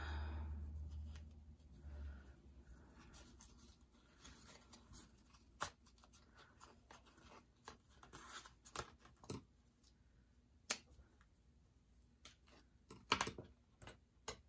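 Faint rustling and light clicks of paper and jute twine being handled as the twine is threaded through a tag's eyelet and tied. A low bump at the very start fades out over about two seconds, and a few sharp little taps stand out later.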